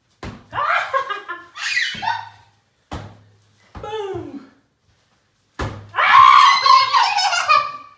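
A child and a woman laughing and squealing in several short excited bursts, with the longest and loudest burst near the end.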